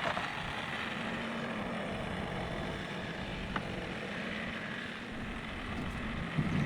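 Old John Deere tractor's engine running steadily with an even hum, a light click about three and a half seconds in.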